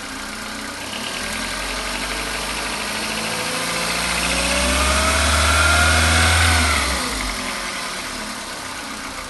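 Skoda Rapid's 1.6-litre CFNA four-cylinder petrol engine running, its revs raised slowly from idle to about 2000 rpm and held, then let fall back to idle about seven seconds in.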